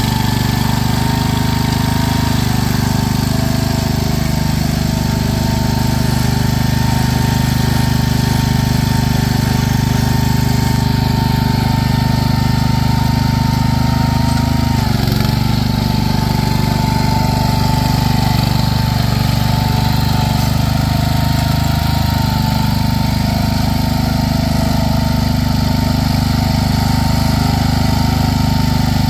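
Small single-cylinder-class garden tractor engine running steadily as the tractor churns through deep mud, its note dipping briefly about halfway through.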